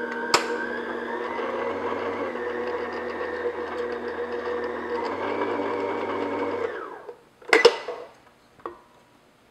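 Electric stand mixer motor running steadily with a whine, beating cake batter in a steel bowl, then winding down and stopping about seven seconds in. A loud clunk follows as the mixer head is tilted up.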